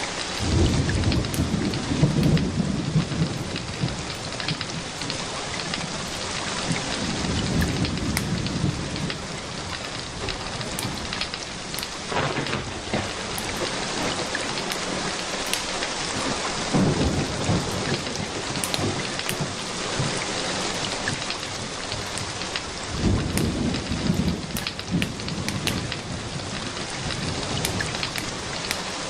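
Steady rain falling, with low rolls of thunder swelling and fading four times: at the start, and about 7, 17 and 23 seconds in.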